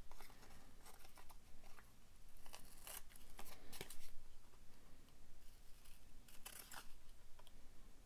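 Scissors snipping through a manila paper tag: several short, separate cuts at irregular intervals.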